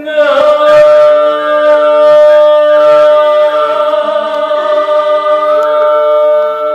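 Traditional Vietnamese water-puppet music: a singer's long, wavering sung line enters loudly at the start, over steady held instrumental notes.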